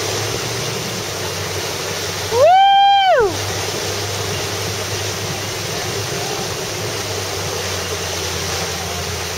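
Steady rush of water from the tow boat's wake and the rider's board, over a low engine hum. About two and a half seconds in, a person lets out one long high-pitched cheer that slides up, holds for under a second, and slides back down.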